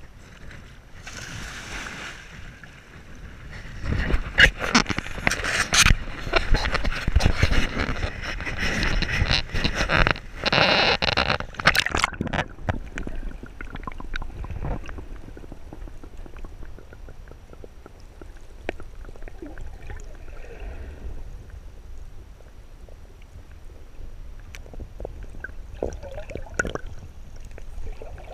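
Sea water splashing and washing over a GoPro at the water's edge as small waves roll in, loud with many sharp clicks for the first dozen seconds. Then the camera is underwater and the sound turns muffled and much quieter, with a little faint splashing near the end.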